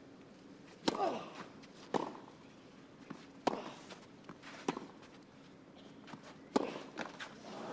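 Tennis ball struck back and forth in a baseline rally on clay: about five sharp racket hits, one every one to two seconds, over a faint stadium background. Near the end the crowd noise swells.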